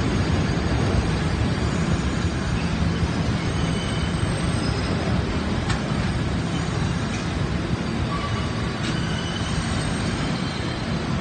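R68 subway cars rolling slowly along the elevated tracks with a steady low rumble of wheels on rail. Faint brief wheel squeals and a few clicks come through it in the middle.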